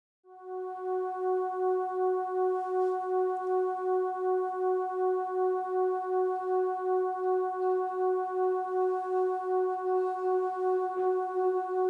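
Crystal singing bowl sounding one sustained tone with clear overtones, swelling up just after the start and then holding steady with a regular wavering of about three pulses a second.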